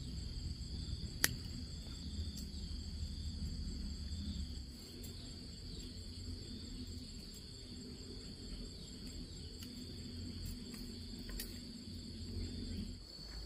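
Insects calling in a steady, high-pitched, continuous drone. Under it a low rumble eases off about five seconds in, and there is a single sharp click about a second in.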